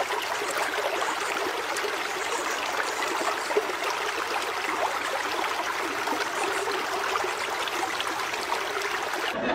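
Water rushing steadily over a stepped concrete spillway, an even, unbroken rush of flowing water.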